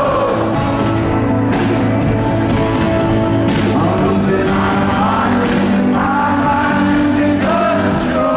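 Rock band playing live: a sung lead vocal over guitars and drums, with a cymbal crash about every two seconds.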